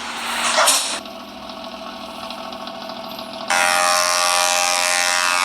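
Hino truck engine running, with a loud rushing burst in the first second. About three and a half seconds in, a loud steady horn blast starts and holds on one unchanging chord.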